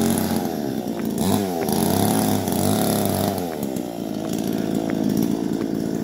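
A chainsaw cutting bamboo, its engine revving up and down in pitch as it works.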